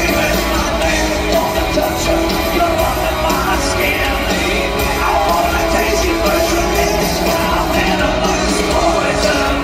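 Live hard rock band playing at full volume: distorted electric guitars, bass and drums under a sung lead vocal, heard from the audience in a large arena.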